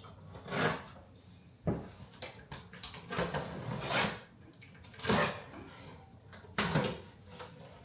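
Packaging being opened and handled to unbox a display head: a series of rustles and scrapes, with a sharp knock about one and a half seconds in.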